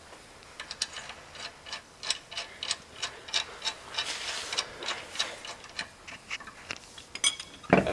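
Ratchet socket wrench clicking as the lug nuts are run onto the spare wheel, a few uneven clicks a second.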